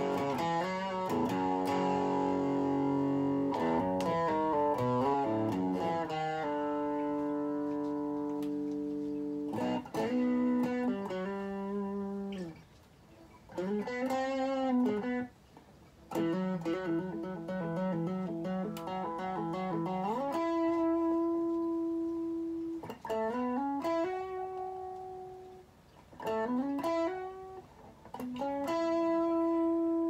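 Telecaster-style electric guitar playing slow, held chords and single notes, with pitches sliding up and down the neck between phrases. The sound drops away briefly between phrases a few times.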